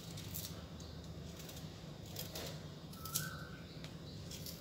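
Kitchen knife paring the skin off a green mango: short, irregular scraping strokes of the blade, a few a second, over a faint steady low hum.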